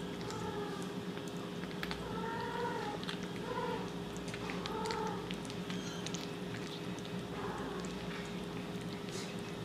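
A kitten eating wet cat food from a bowl: wet chewing and smacking clicks, with short high-pitched mews about four or five times as it eats.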